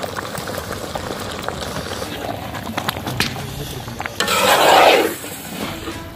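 Chicken biryani gravy simmering in a large metal cauldron as it is stirred with a ladle: a steady bubbling hiss with scattered scraping clicks. About four seconds in, a louder rushing hiss sweeps downward and dies away after about a second.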